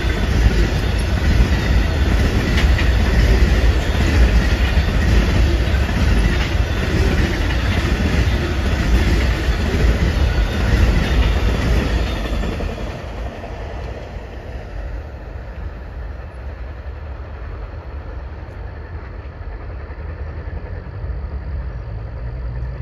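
Amtrak Auto Train autorack cars rolling past at speed, a loud steady rumble with the wheels clicking over rail joints. About thirteen seconds in, the sound drops to a quieter, steady rumble.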